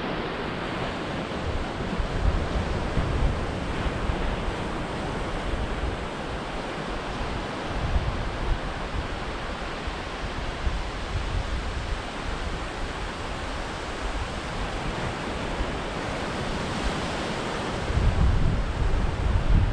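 Small waves breaking and washing on a flat sandy beach, a steady surf hiss, with wind buffeting the microphone in gusts, strongest near the end.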